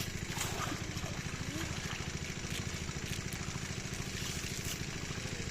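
Small engine of a water-pump machine set up at a fish pond, running steadily with an even, rapid beat.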